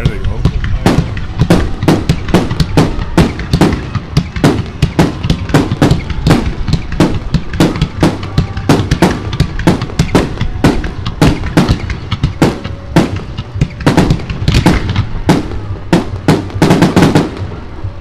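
Aerial fireworks shells bursting in rapid succession, about three sharp bangs a second over a low rumble, with a dense flurry of bangs near the end that then stops.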